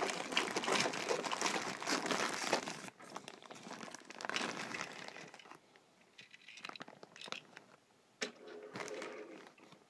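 Clear plastic packaging bag crinkling as a plastic toy train coach is pulled out of it. The crinkling is loud and continuous for about the first three seconds, then comes in scattered short crinkles and clicks.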